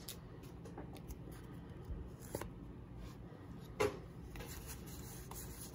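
Pokémon trading cards being handled and slid past one another in the hand, giving a few soft card flicks, clearest about two and a half and four seconds in, over faint room tone.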